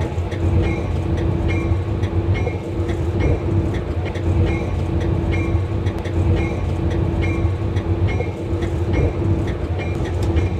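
Diesel-electric locomotive ZCU-30-6308 running steadily as heard from inside its cab, a low drone with a steady hum over it. A light tick repeats regularly, about every three-quarters of a second.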